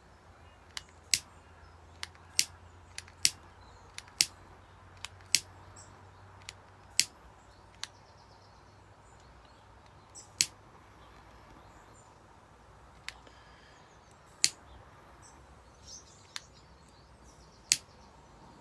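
Egg-carton cardboard and compressed-straw pellets burning, giving off sharp, irregular snaps and pops, about one a second at first and sparser after about seven seconds.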